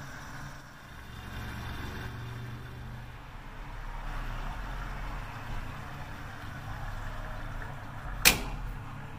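Gas station fuel pump dispensing into the tank, a steady low hum with a hiss of fuel flowing. About eight seconds in comes a single sharp click, the nozzle's automatic shut-off as the tank fills.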